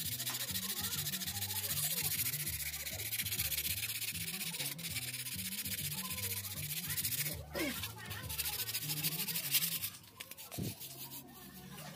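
Sandpaper rubbed by hand over the wood of a keris made from glued ice-cream sticks, a steady scratchy sanding that stops about ten seconds in.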